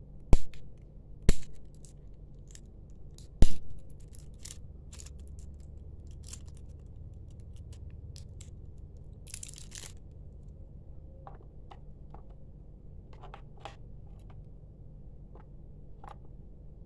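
Batteries clicking and tapping against each other as they are handled and fitted into a wireless keyboard's battery compartment: three sharp clicks in the first few seconds, then light ticks and a brief rustle.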